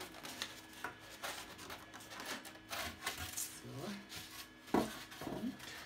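Styrodur rigid foam slabs rubbing and scraping against each other and the baseboard as they are slid and lifted, a series of short rasping strokes. A faint steady hum from two 3D printers runs underneath.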